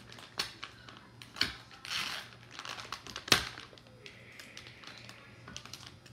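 Crinkling and crackling of a soft plastic wet-wipe pack as its resealable flap is peeled back and a towelette is pulled out, in a string of short crackles with the sharpest about three seconds in.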